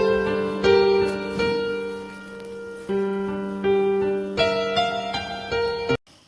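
Background piano music, notes struck in a slow run with held chords; it breaks off suddenly near the end.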